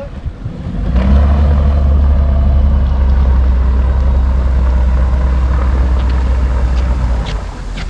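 Suzuki outboard motor driving a small fibreglass boat away from the ramp under power, heard under a heavy low rumble that sets in about a second in and cuts off abruptly near the end.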